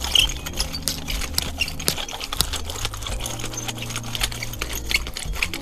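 Garden Weasel rotary cultivator's star-shaped metal tines rolling and scraping through loose soil and grass, a quick, irregular rattle of clicks and crunches as it is pushed back and forth to work grass seed into the soil.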